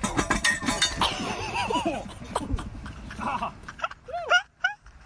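Sharp metallic clinks in the first second as a jumper's feet catch a steel bollard, then a string of short, high-pitched vocal squeals, each rising and falling in pitch.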